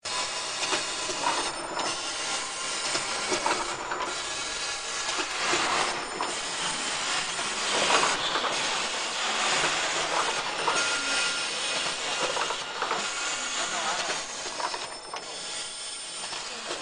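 Pyramid tea bag packaging machine running: a steady mechanical hissing noise, with a short dip in the high part of the sound about every two seconds as it cycles.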